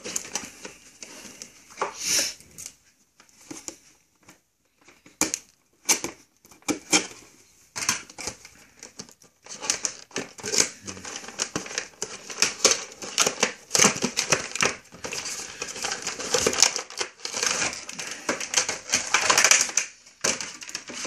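Cardboard and plastic toy packaging being opened by hand: scattered clicks and scrapes at first, then a dense run of crinkling and rustling from about halfway through as the plastic tray is pulled out of the box.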